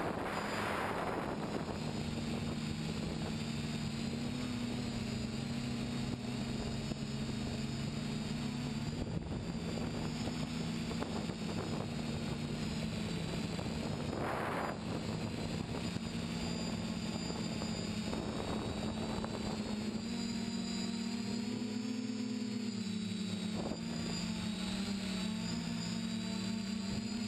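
TBS Discovery quadcopter's brushless motors and propellers buzzing in flight, heard from a camera on the drone itself. The pitch wavers up and down with the throttle, and brief rushes of wind hit the microphone a few times.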